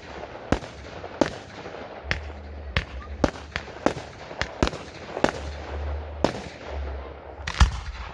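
Fireworks going off in a steady run of sharp bangs, roughly one every half second to second, over a continuous crackling hiss. The loudest bang comes near the end.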